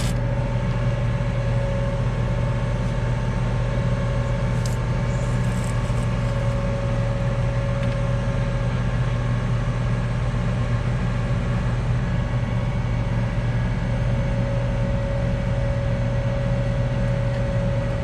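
Tractor engine idling steadily with an even low drone. About four to six seconds in, a few brief hisses of an aerosol hornet spray can.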